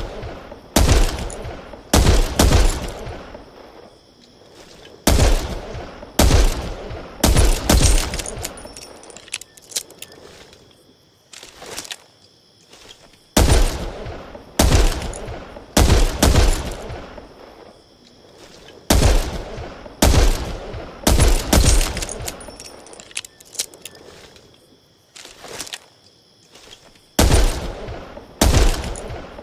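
.357 Magnum revolver shots, fired in quick strings of three or four about a second apart, each with a short echoing tail, with pauses of a few seconds between strings.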